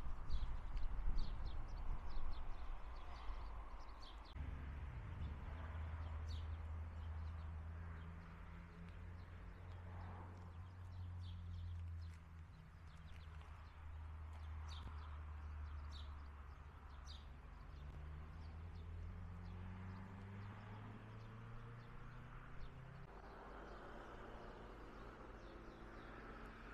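Outdoor ambience: a low rumble for the first few seconds, then a steady low hum that rises slightly in pitch and stops near the end, with short high chirps of small birds throughout.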